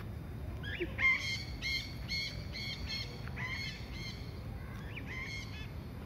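A parrot calling in flight: a run of short, pitched calls repeated about two to three times a second for several seconds, stopping shortly before the end.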